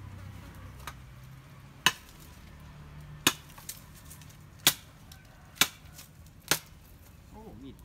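Machete chopping a wooden branch for firewood: five sharp chops about a second apart, with a few lighter knocks between them.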